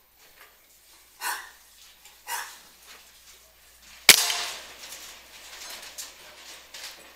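A dog barks twice, then about four seconds in a single shot from a PCP air rifle: one sharp crack with a short ringing tail.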